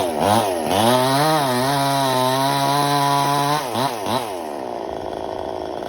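Two-stroke chainsaw revved up in quick blips, held at full throttle for a couple of seconds, then dropped back with one short blip to a lower, quieter running speed.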